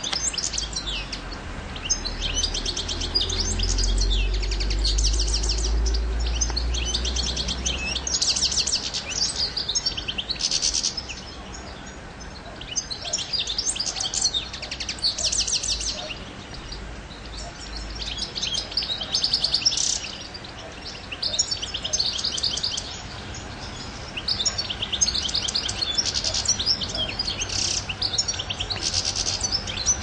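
European goldfinch singing: a long run of rapid, high twittering phrases with short pauses between them. A low rumble sits underneath for the first eight seconds or so.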